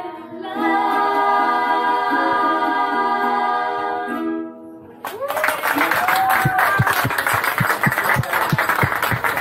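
Children's choir singing held chords, fading out about four and a half seconds in. Then, abruptly, a different noisy scene: a few short voices and a rapid, uneven run of sharp clicks or knocks.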